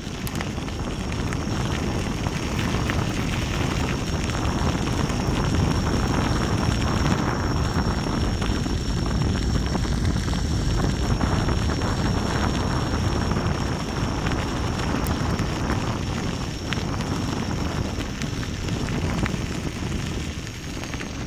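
Wind buffeting a low-mounted microphone and the tyre rumbling on the path as a Gotway MSuper3 electric unicycle rolls along at cruising speed, with a faint steady high whine above the rush. The rush swells through the middle and eases toward the end.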